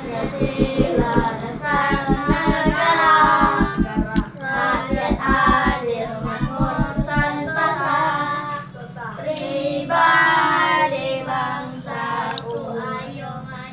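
Children singing a song together, with a steady low pulse of about five beats a second under the first half that stops about seven seconds in.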